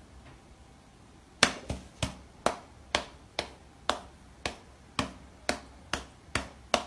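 A cat's paw slapping against a person's outstretched hand, a sharp pat about twice a second, a dozen or so times, starting about a second and a half in.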